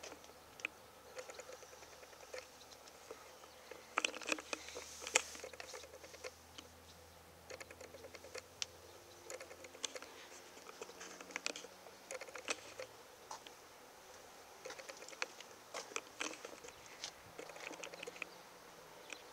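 Faint, irregular clicks and taps, thickest about four to five seconds in: handling noise from a handheld camera and footsteps of the person walking around the car.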